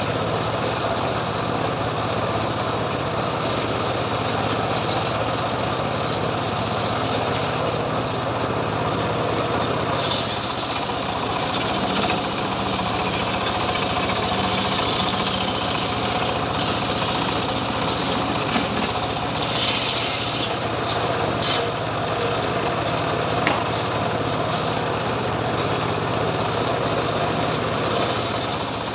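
Homemade engine-driven log sawmill running steadily. From about ten seconds in until near the end, its blade cuts through mahogany wood, adding a high hiss over the engine.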